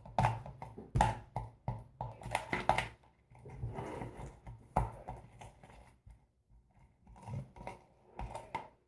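Irregular taps and knocks of containers and a utensil against a mixing bowl while slime ingredients are added and stirred, with a short scraping stretch about three and a half seconds in; the taps thin out towards the end.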